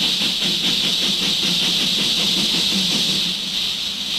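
Steam locomotive letting off a steady hiss of steam, over a low, fast, even beat that eases off about three seconds in.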